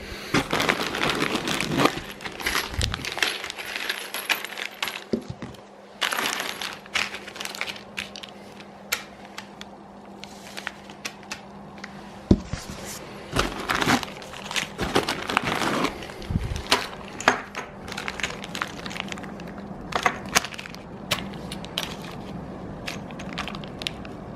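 Small loose metal parts from a 3D printer kit being handled: repeated light clinks and rattles, with short bursts of rustling.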